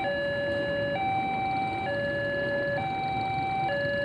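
Electronic warning alarm of a railway level crossing: two steady tones, one lower and one higher, taking turns about once a second.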